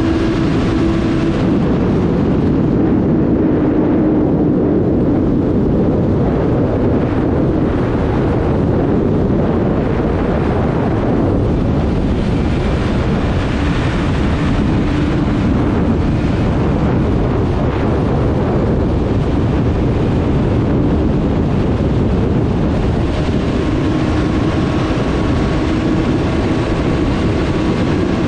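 Kawasaki Ninja 1000SX's inline-four engine running steadily at over 200 km/h in sixth gear, mixed with a heavy wind rush on the microphone.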